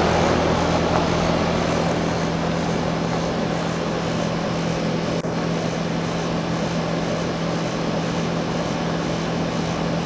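A 2014 American Standard central air conditioner's outdoor condenser unit running: the steady rush of the condenser fan over a constant low hum. It eases slightly in the first couple of seconds, then holds steady.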